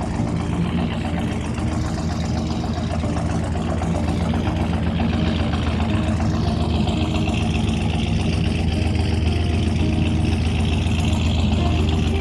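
A boat's inboard engine idling steadily with a low, even rumble, growing slightly louder.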